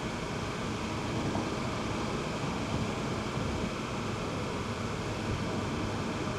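Steady road and wind noise from an Audi TT RS cruising lightly off-boost, its five-cylinder engine only a low hum underneath.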